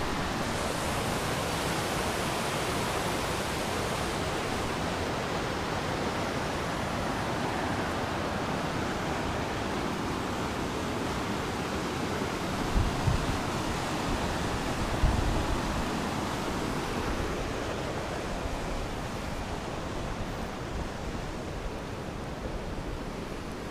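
Steady rushing of river rapids below a waterfall, growing somewhat fainter in the second half. A couple of low bumps on the microphone about halfway through.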